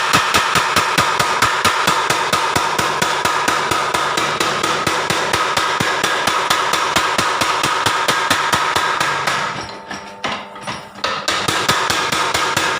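Blacksmith's mechanical power hammer (forging hammer) running, striking in a fast, even rhythm of several blows a second. The blows stop for about a second and a half near the end, then start again.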